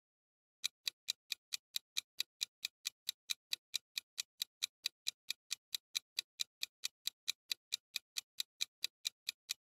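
Fast clock-ticking sound effect marking a countdown timer, evenly spaced sharp ticks at about four to five a second, starting about half a second in.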